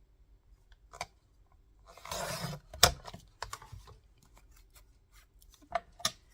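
Paper being cut on a hand paper trimmer: a short rasp of the blade about two seconds in, a sharp snap, then a run of light clicks and taps as the paper is handled. The blade does not cut cleanly all the way through, a sign of a worn trimmer.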